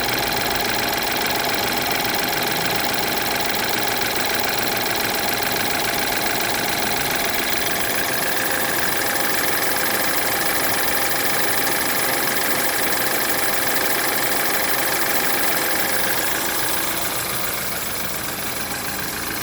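BMW N20 2.0-litre turbocharged four-cylinder engine running steadily, with the timing chain noise audible after a timing chain replacement. The level drops slightly near the end.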